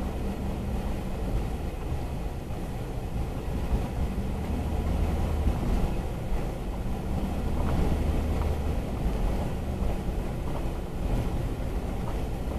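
Vehicle driving along a dirt track, heard from inside the cab: a steady low rumble of engine and tyres on gravel.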